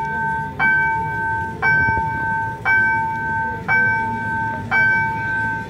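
Railroad level-crossing warning bell striking about once a second, each strike ringing on until the next, with a low rumble of street noise beneath.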